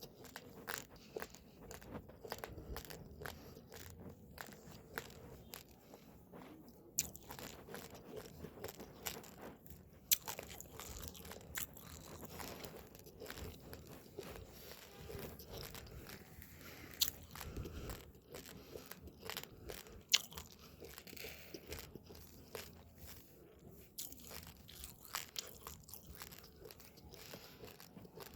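Raw, uncooked rice grains being chewed close to the microphone: a continuous run of small crunches and cracks between the teeth, with a few louder, sharper snaps scattered through.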